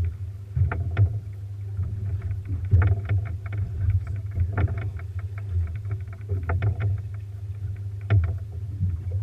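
Ambient sound aboard a fishing boat on the water: a steady low rumble with frequent short knocks and slaps.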